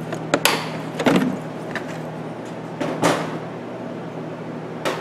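Compression tester hose and its metal fittings being handled over an engine bay, giving a few sharp clacks and rattles, about four in all, over a steady low hum.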